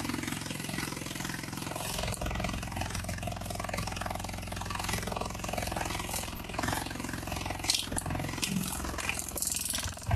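Large rhinoceros beetle beating its wings while held by the horn: a steady low, fast-pulsing buzz, growing uneven with scratchy rustles in the last few seconds.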